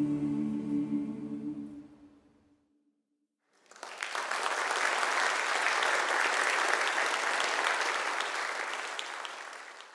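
The final held chord of a choir with piano dies away. After a moment of silence, the audience applauds steadily for about six seconds, then the applause fades out.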